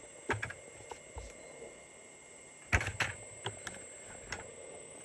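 Kabolite K970 RC hydraulic excavator digging: irregular sharp clicks and knocks, the loudest two just before three seconds in, over a faint steady hum.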